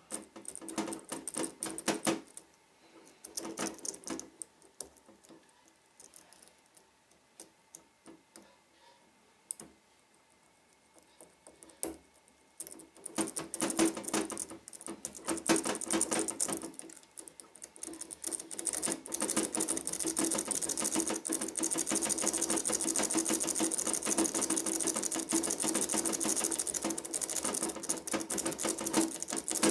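Metal lock pick working the pins inside a Trioving 5632 padlock. It starts with scattered clicks and scraping and a quiet stretch. About two-thirds of the way in it becomes a fast, continuous clicking rattle.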